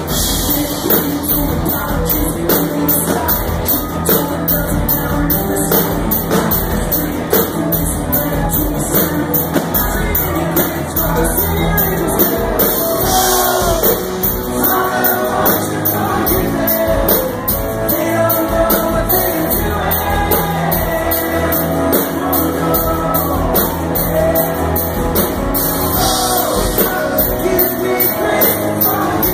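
Live rock band playing with a male lead singer over acoustic guitar, drums and keyboard, heard from among the audience in a large hall. A steady drum beat runs under the singing.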